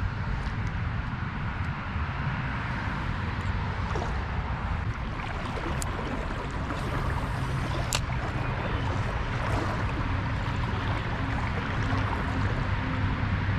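River water running steadily over a riffle, with a low rumble underneath and two brief sharp clicks partway through.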